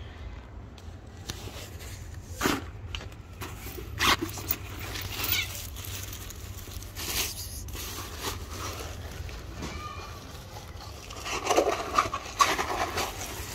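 Short crinkling rustles of a plastic bag being handled, a few spaced bursts and then a busier cluster near the end, over a steady low rumble.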